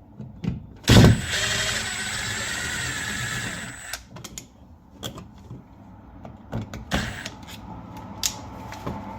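A sharp knock, then a power drill/driver running for about three seconds, backing out the outlet's screws, followed by scattered clicks and knocks of handling.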